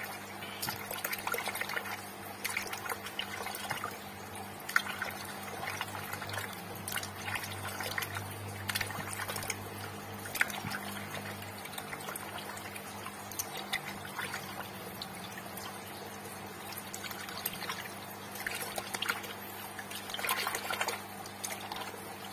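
Water sloshing and splashing in a shallow plastic tub as a hand works a brooding female freshwater crayfish under the water to shake her young loose, in many short, irregular splashes. A low steady hum lies underneath.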